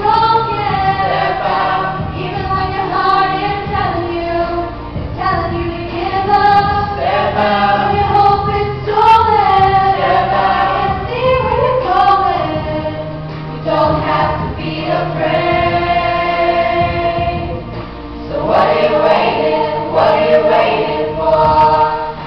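Youth vocal ensemble of boys and girls singing in harmony into microphones, with a long held chord past the middle.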